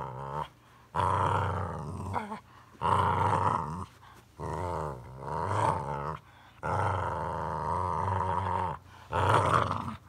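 Boxer dog growling in a string of drawn-out grumbles, about six in a row, each half a second to two seconds long, with short pauses between them.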